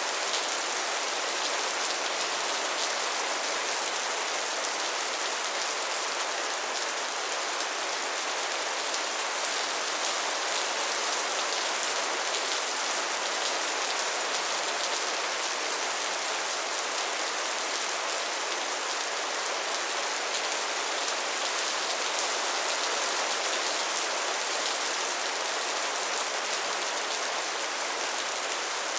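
Steady soft rain falling, an even patter of many drops on a surface with no thunder or breaks.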